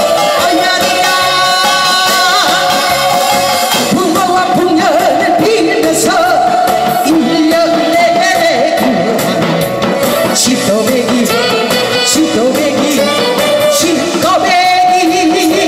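A woman singing a Korean trot song loudly into a microphone, holding long notes with vibrato, over amplified band accompaniment with a drum beat.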